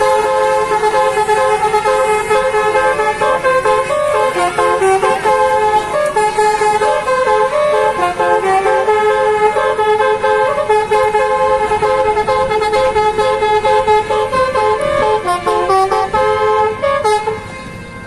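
Basuri musical "telolet" horn on a Tunggal Jaya coach playing a long tune of stepped notes without a break, then cutting off shortly before the end.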